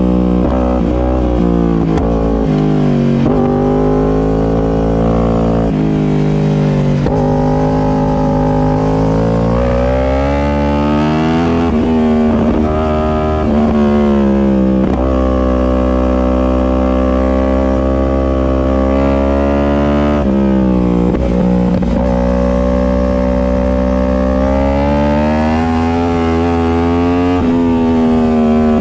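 Superbike engine running hard on track, its pitch dropping in steps as the revs fall, then climbing again and holding high revs for long stretches; this happens twice.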